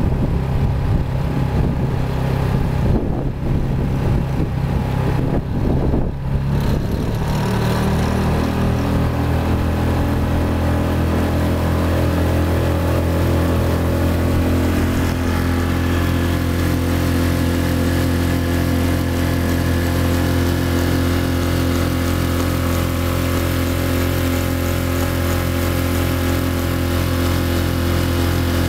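Small Mercury outboard motor running steadily, pushing a canoe along under power. Its note changes about seven seconds in, then holds steady.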